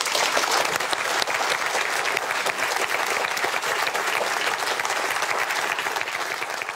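Studio audience applauding steadily, many hands clapping together.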